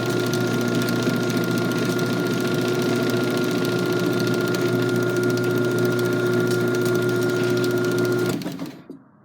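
Garage door opener running: a steady motor hum with a high whine and a fine mechanical rattle, which cuts off about eight and a half seconds in, followed by a small knock.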